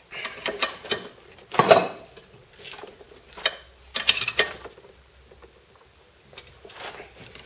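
Bench vise being screwed down hard on a bent steel steering tie rod to straighten it: irregular metallic clicks and knocks, the loudest about two seconds in, with two brief high squeaks about five seconds in.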